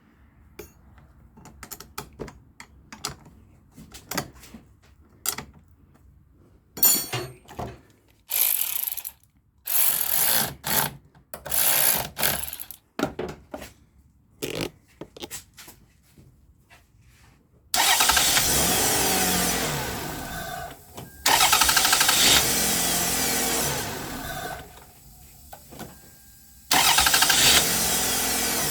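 Toyota Solara's newly installed starter cranking the engine in three loud tries of a few seconds each, after a run of shorter clicks and brief bursts.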